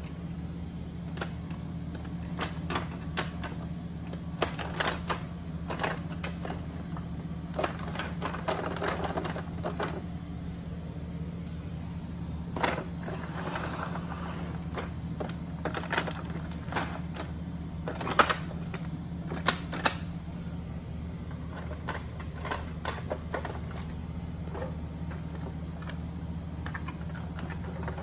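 Irregular metallic clicks and clacks of O gauge aluminium passenger cars being handled on three-rail track, over a steady low hum.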